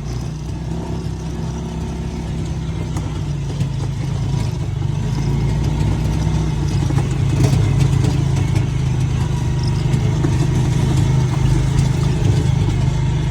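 Motor vehicle engine running steadily, a low rumble that grows a little louder a few seconds in.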